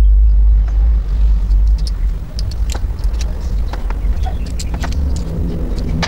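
A deep low rumble, loudest for the first two seconds and then easing, with light clicks and taps of small plastic hose fittings being handled on a wooden table.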